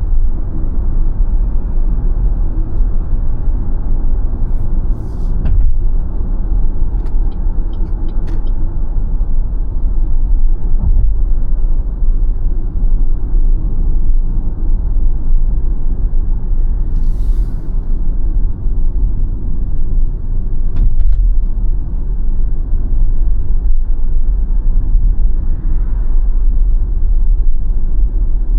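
Steady low road and tyre rumble from a BYD Sealion 7 dual-motor electric SUV on the move, with a few faint clicks and a brief hiss about two thirds of the way through.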